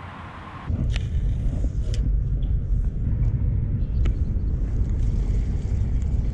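Wind rumbling steadily on an action-camera microphone, starting abruptly under a second in after a soft hiss, with a few sharp clicks from handling the spinning reel and rod.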